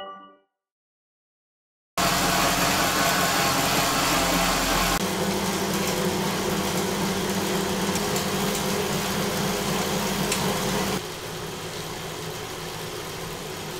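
Bicycle tyre spinning on indoor rollers under pedalling at 150 watts: a steady whirring hum that starts about two seconds in. It is loudest at first on plain rollers. After a cut about five seconds in it comes from a Wahoo KICKR ROLLR with its power off. From about eleven seconds in the KICKR ROLLR is in Erg mode, clearly quieter at a much lower wheel speed.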